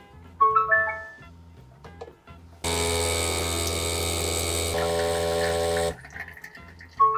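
Kanu Barista Urban capsule coffee machine brewing. A short electronic chime of several notes sounds, then the pump hums steadily for about three seconds as coffee runs into the glass, its tone shifting partway through. The same chime sounds again near the end.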